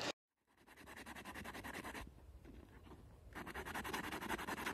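A small knife's edge drawn quickly back and forth over a sheet of abrasive paper laid on a soft foam sleeping mat, a rapid scratching that comes in two spells, the second louder and cut off abruptly: the edge being sharpened.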